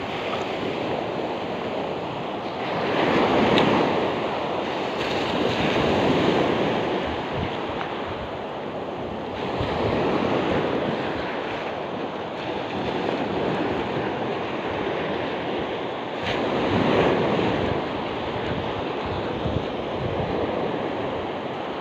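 Sea surf breaking and washing up a black-sand beach, swelling louder with each wave every few seconds.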